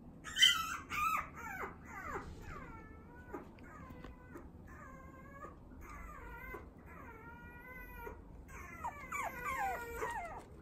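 Toy poodle puppy whining and whimpering in a series of high, falling-pitched cries, the loudest a sharp squeal about half a second in and a quick run of cries near the end.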